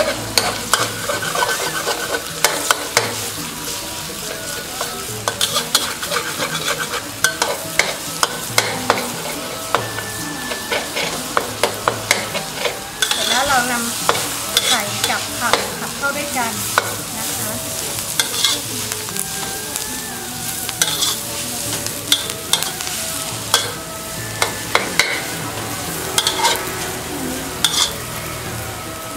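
Chopped mustard greens and egg sizzling as they are stir-fried in a thin metal wok, with a metal spatula repeatedly scraping and clacking against the pan at an irregular few strokes a second.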